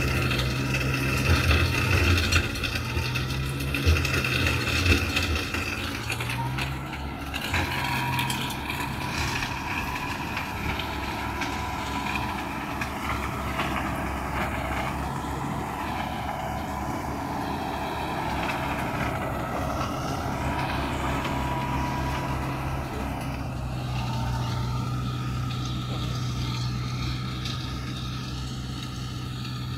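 Universal 640V tractor running steadily while driving a flail mower, its engine pitch wavering in the first few seconds and then holding even. A higher steady whine joins about seven seconds in and fades out a little after twenty seconds.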